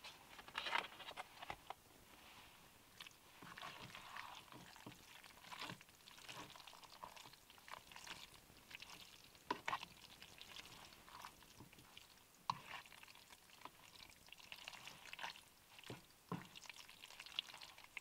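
Noodles being eaten with chopsticks from a metal pot: faint slurping and chewing, with a sharp click of the chopsticks against the pot every few seconds.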